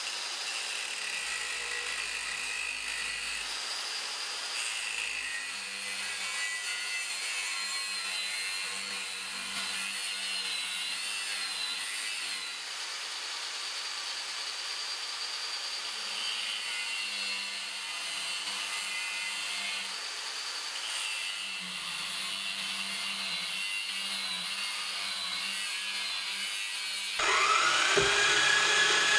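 Band saw cutting lengthwise through a 20×20 mm square steel bar: a steady sawing hiss with faint wavering high whines. Near the end a louder power tool starts up with a rising whine that settles into a steady tone.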